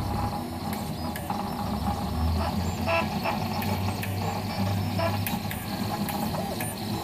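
Markforged 3D printer running: a steady motor hum with scattered light clicks and a few short pitched whirring notes as the print head moves.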